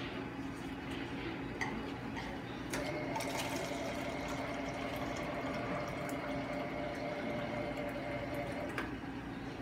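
Automatic pancake-making machine running its motor: a steady whir that starts with a click about three seconds in and stops with another click near the end, as the finished pancake is pushed out onto the plate.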